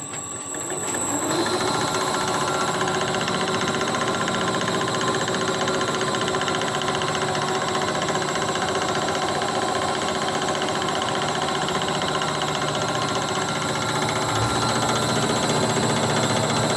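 Overhead EOT crane's electric travel drive, motor and gearbox, starting up with a short rising whine within the first second or so, then running steadily with a dense mechanical whir on a test run after its brake was tightened.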